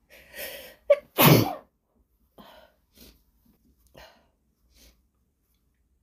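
A woman's induced sneeze: a short breathy build-up and a sharp catch, then one loud sneeze about a second in, followed by a few short, quieter breaths.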